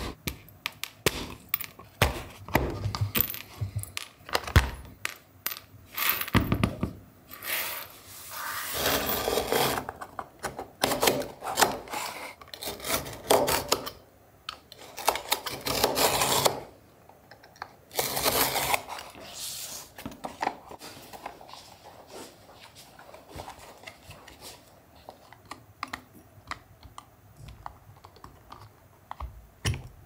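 Leatherworking sounds: a small hammer tapping quickly and repeatedly on leather over a wooden form on a cutting mat, then a utility knife slicing through leather in several long strokes, then quieter light scratching and ticks as the leather is marked with a pointed tool.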